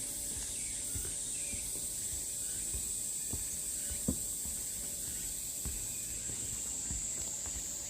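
Cicadas singing in a steady, high-pitched chorus, with faint bird chirps. Scattered soft low knocks, one sharper about four seconds in.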